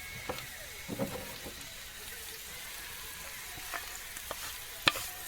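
Chopped mushrooms sizzling in a hot frying pan as they go in, with a few clicks and taps from the cooking utensil. A sharper knock comes near the end.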